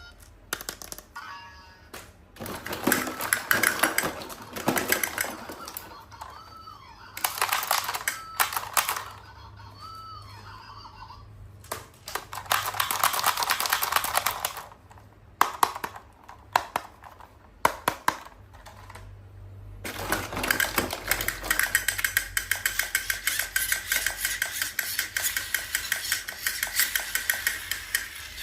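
Unboxing a toy by hand: plastic packaging crinkles in bursts among sharp clicks and taps of plastic pieces, then a long stretch of dense crackling with rapid ticks over the last third.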